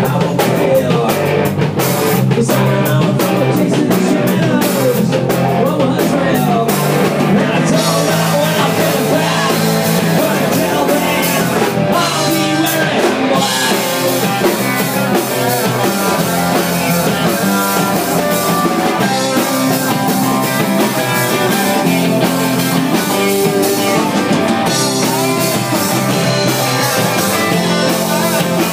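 Live rock band playing loud: electric guitars, bass guitar and a drum kit.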